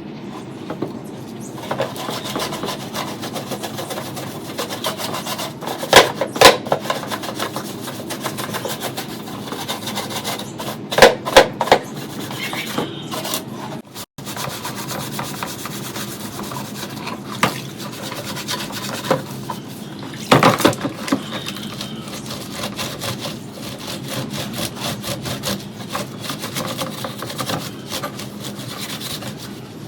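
Quick, repeated rubbing strokes of hand abrasion, like sanding or scraping rust off a metal fan part, broken by a few loud knocks of the part being handled.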